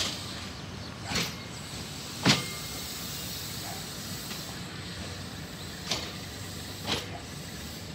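Vietnam Railways passenger coaches rolling slowly away, with a steady running noise broken by sharp metallic clacks in two pairs about a second apart, the second clack the loudest.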